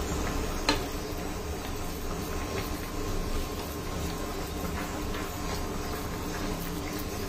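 Okra, potato and fish curry simmering in a wok, with a spatula stirring it and tapping against the pan a few times, the sharpest tap a little under a second in. A steady faint hum runs underneath.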